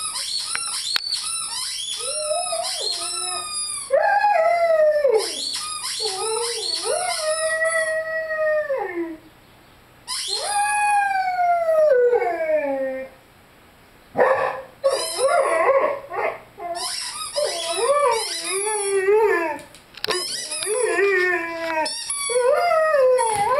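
Rhodesian Ridgeback puppy howling in a string of long pitched wails, some held and then sliding down, with short breaks between them. Over the howling, his squeaky chicken toy squeaks in quick high-pitched runs.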